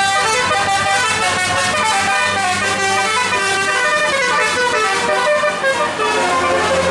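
Bus musical air horn (telolet) playing a quick melody of short notes, over a low steady hum.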